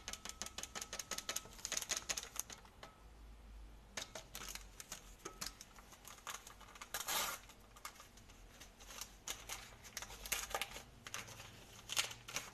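Paper sachet of baking powder crinkling and being tapped as it is emptied into a bowl of semolina, in clusters of quick crackles, with a short louder rustle of the packet about seven seconds in.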